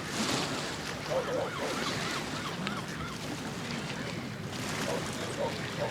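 Steady wind buffeting the microphone over waterfront ambience, with faint, indistinct voices in the background.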